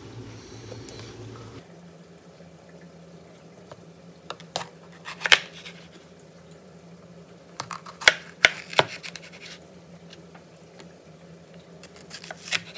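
Chef's knife slicing a green bell pepper on a wooden cutting board: a few sharp, irregularly spaced knocks as the blade hits the board, with quieter cutting and scraping between them.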